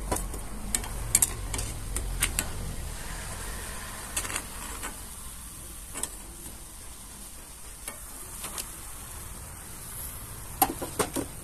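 Batter fritter sizzling in hot mustard oil in a black iron kadai, a steady frying hiss, with a steel spatula clinking against the pan several times. Near the end comes a quick run of clinks.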